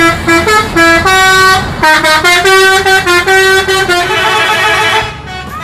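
Multi-tone 'telolet' bus horn playing a quick tune of short notes, then a harsher blast for about a second near the end.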